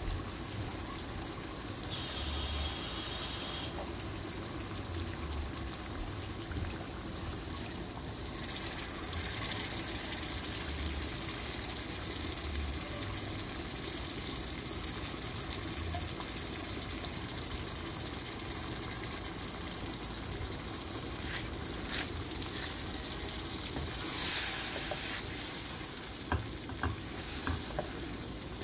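Red lentils sizzling in hot oil in a frying pan as they are stirred with a wooden spatula. A few sharp clicks of the spatula against the pan come near the end.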